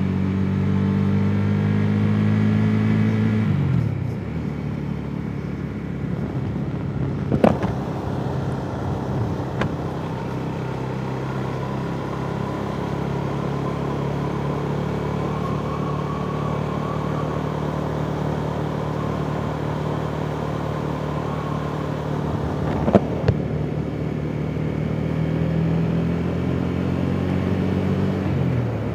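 KTM 390 Duke's single-cylinder engine running on the move over a steady rush of wind. The revs climb, then drop away about four seconds in. It holds a steady lower note through the middle, with two sharp knocks, then climbs again near the end and drops off once more.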